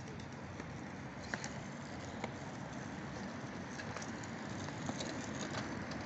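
Birds giving scattered short, high calls and chirps over a steady low background rumble.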